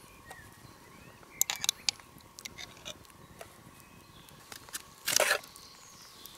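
A metal spoon scraping and clinking against a glass mustard jar and a steel frying pan as mustard is scooped out: a few sharp light clicks, then one louder, short scraping noise about five seconds in.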